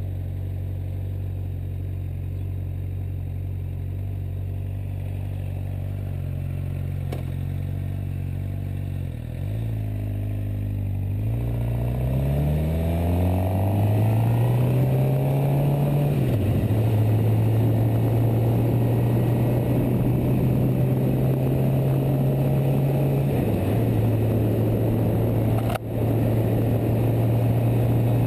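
Suzuki GSX-R600's inline-four engine running steadily at low revs, then revving up as the bike pulls away, the pitch dropping at two upshifts before it settles into a steady cruise. A brief break with a click comes near the end.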